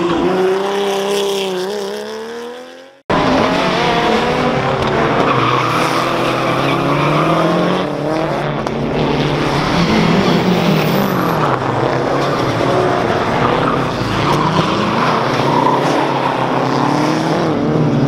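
Porsche 911 SC rally car's air-cooled flat-six engine running and fading away, cut off suddenly about three seconds in. Then rally car engines rev up and down repeatedly, the revs rising and falling through gear changes.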